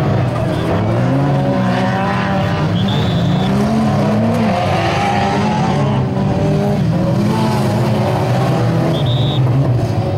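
Several stock-car engines revving and running together, their pitches rising and falling unevenly as the cars race and collide on a dirt track.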